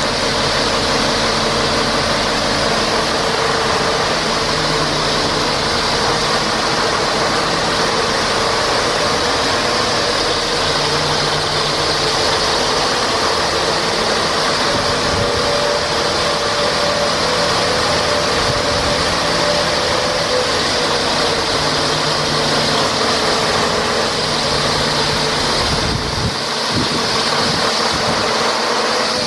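Mack ASET E7 turbocharged inline-six diesel in a truck tractor, idling steadily. Near the end the low rumble thins out.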